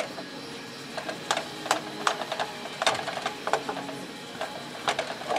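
Slotted spatula scraping and knocking against a deep pan as sliced mushrooms and onions are stirred in melted butter: irregular clicks and scrapes, a few a second.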